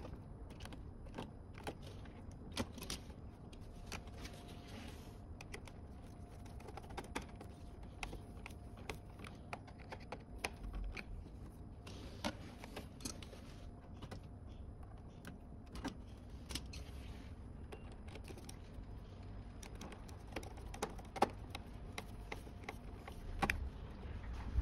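Scattered small clicks and light metallic clatter of hand tools and parts being handled, irregular and unhurried, over a faint steady hum.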